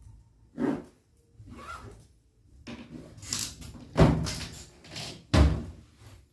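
A series of knocks and thuds, like household handling noises. The two loudest are heavy thumps about four seconds in and about five and a half seconds in.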